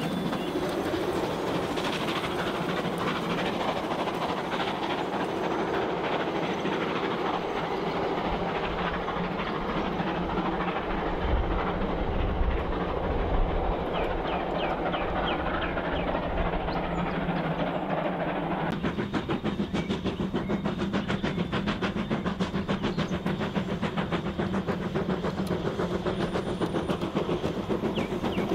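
1:24 scale model NZR Ab class steam locomotive and its freight train rolling along garden railway track with a steady rumble. About two-thirds through, a fast, even clicking sets in and continues as the train nears.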